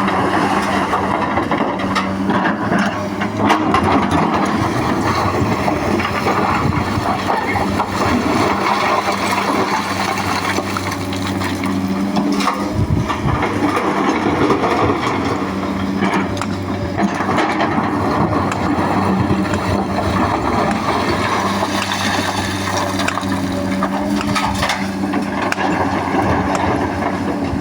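Excavator's diesel engine running steadily under load, with irregular knocks and scraping of rock being dug and handled.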